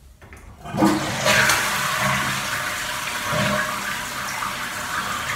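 Toilet flushing: water rushes in suddenly about a second in and keeps running steadily.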